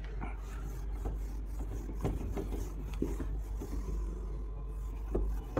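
Whiteboard being wiped with a duster: soft, uneven rubbing strokes against the board.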